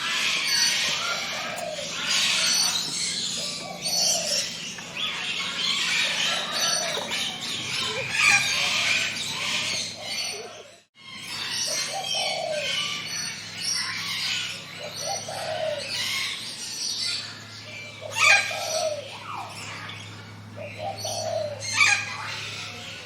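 A chorus of forest birds chirping and singing, many short overlapping calls and trills, with a few lower calls among them. The sound cuts out completely for a moment about halfway through, then resumes.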